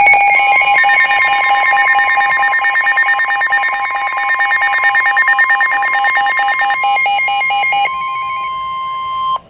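Weather-alert tones: a steady high alert tone, of the kind NOAA Weather Radio sounds before a warning, holds for about nine seconds and cuts off suddenly just before the end. A rapidly pulsing alarm tone sounds over it and stops about 8 seconds in.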